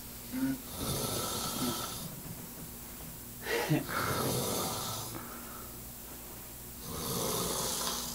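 A man snoring heavily in his sleep: three long, noisy snores about three seconds apart, the loudest about three and a half seconds in.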